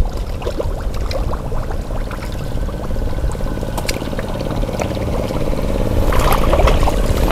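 Water splashing, pouring and trickling in a shallow, muddy draining pond, as hands work through the water, over a steady low hum. The splashing gets busier and louder about six seconds in.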